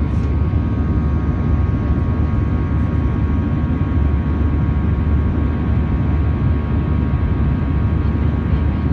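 Jet airliner in flight, heard from inside the cabin: the steady low rumble of the turbofan engines and rushing air, with faint steady whining tones above it.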